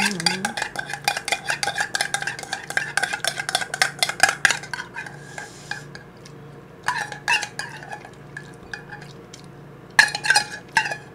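Metal spoon scraping and clinking rapidly around the inside of a small tin can of spicy tuna, the can ringing with each stroke. The scraping stops about five seconds in, then comes back in short bursts twice more.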